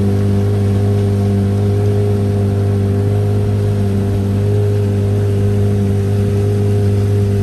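An engine running steadily at constant speed, an even, unchanging drone.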